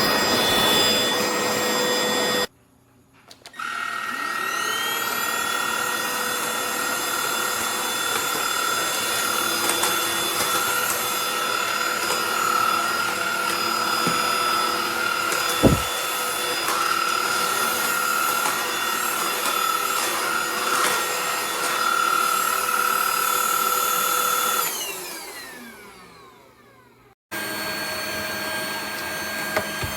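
Bieiao cordless stick vacuum's motor switched on, winding up to a steady high whine over rushing air, then switched off and winding down after about twenty seconds. A single sharp knock comes about midway.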